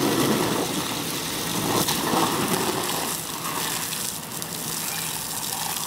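Steady hiss of water spraying from a garden hose into an inflatable kiddie pool.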